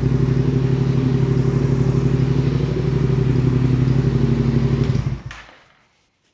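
Motorcycle engine idling steadily through its freshly re-riveted exhaust, then switched off about five seconds in, the note dying away quickly to silence.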